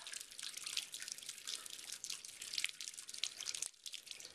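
Thin stream of water running from a bathtub tap, trickling and splattering with many irregular drips as a cat drinks from it; it briefly goes quieter near the end.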